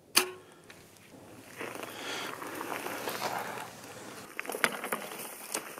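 Rustling and crunching noises, with a sharp click just after the start and a few fainter clicks near the end.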